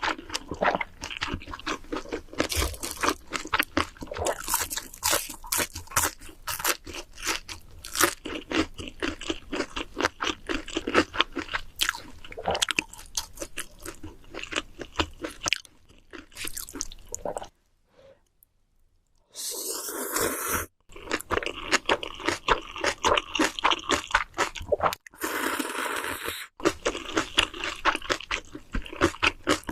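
Close-miked chewing of mouthfuls of instant noodles: a dense run of wet smacking and crunching clicks. It breaks off for a moment a little past the middle, and two short hiss-like sounds come among the chewing after it.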